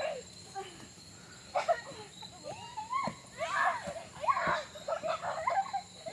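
Distant shouting and calling of several people, in irregular bursts. A steady high-pitched drone of insects runs underneath.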